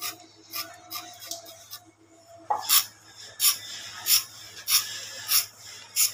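Sharp metal scriber scratching lines into the lacquer of a turned wooden cot leg. Short rasping strokes come irregularly at first, then settle to a regular stroke about every 0.6 s.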